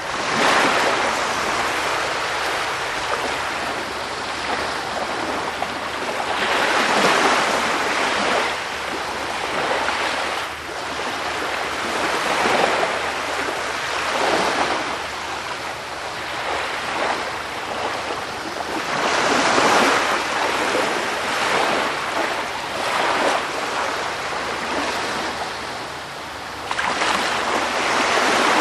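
Sea surf: waves rushing and washing in as a continuous hiss that swells and eases every few seconds.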